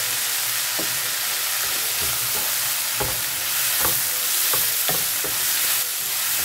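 Chopped vegetables sizzling in oil in a kadai while a wooden spatula stirs them, scraping and knocking against the pan about a dozen times over a steady hiss.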